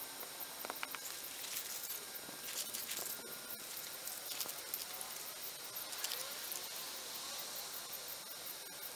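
Steady high-pitched insect calls in the background, with scattered soft clicks and rubbing from hands pressing a rubber keel guard onto the boat's fiberglass hull.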